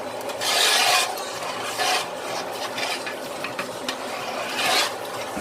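A spoon stirring tomato stew in a cooking pot, with several scraping strokes against the pot.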